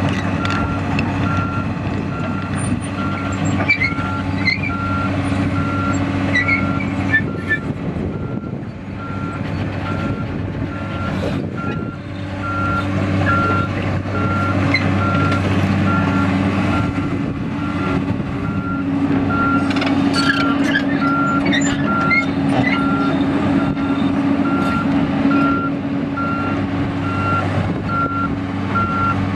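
1999 Komatsu PC228USLC-1 excavator's six-cylinder diesel engine running while its travel alarm beeps steadily, about one and a half beeps a second, as the machine tracks. The engine note drops for a few seconds in the middle, then picks up again.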